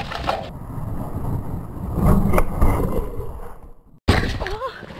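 Mountain bike rolling fast over a leaf-covered forest trail and wooden slats: an irregular rumble from the tyres with knocks and rattles from the bike, loudest a couple of seconds in. The sound cuts out abruptly just before the end, then comes back.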